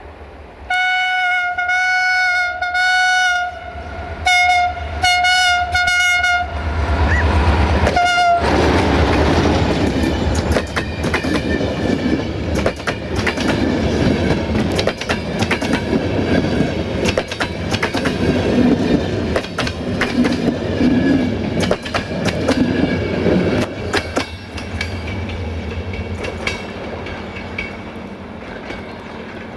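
A CFR Class 65 (060-DA) diesel-electric locomotive sounds its single-tone horn: a long blast about a second in, two shorter blasts around four to six seconds, and a brief one near eight seconds. The locomotive and its passenger coaches then pass close by, with the wheels clicking over the rail joints, and the sound fades over the last few seconds.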